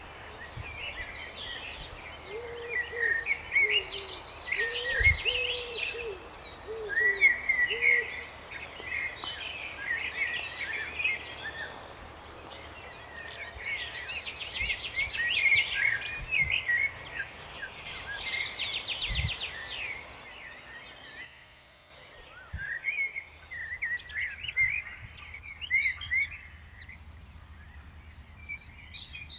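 Several songbirds singing over one another in quick chirps and trills. For the first several seconds a lower-pitched bird gives a series of short hooting notes. A faint low background rumble runs beneath, with a dip about two-thirds of the way through.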